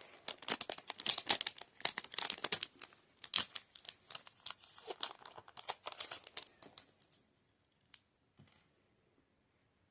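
Packaging crinkling and rustling as a paintbrush is unwrapped by hand, a dense run of crackles that stops about seven seconds in.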